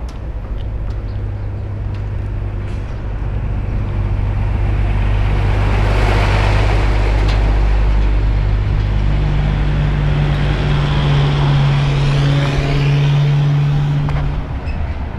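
A motor vehicle's engine running close by, a steady low drone that grows louder over the first few seconds and holds. Tyre and road noise swells in the middle, and the drone drops away shortly before the end.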